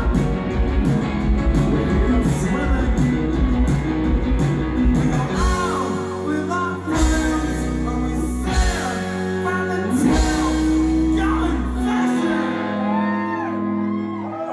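A live rock band with electric guitar, bass guitar and a male singer singing and shouting into a microphone. About five seconds in, the busy rhythm gives way to held chords under the gliding vocal line.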